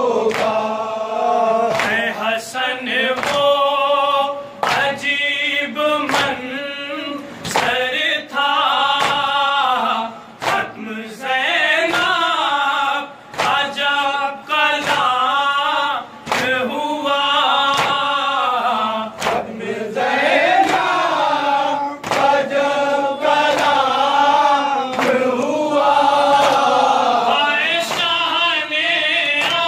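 Men chanting a nauha, a Shia lament for Imam Hussain, in unison over a microphone, with a sharp hand slap on the chest (matam) about once a second keeping the beat.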